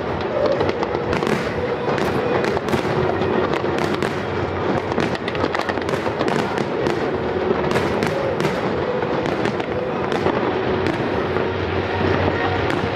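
Aerial fireworks shells bursting one after another in a dense, continuous barrage of bangs and crackles.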